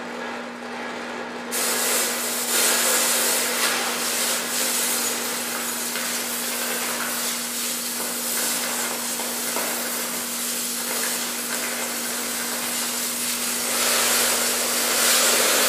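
DHC2000 oxy-acetylene cutting torch cutting steel plate: a steady rushing hiss of flame and gas, which jumps suddenly louder and brighter about a second and a half in as the cut gets going.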